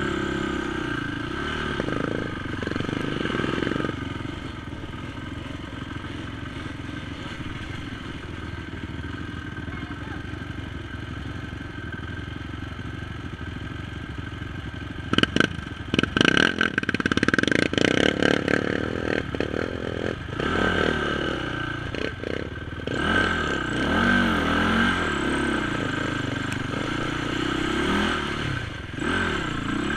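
Honda TRX450 sport quad's single-cylinder four-stroke engine running under load on a muddy trail, rising and falling with the throttle. About halfway through there is a burst of knocks and clatter.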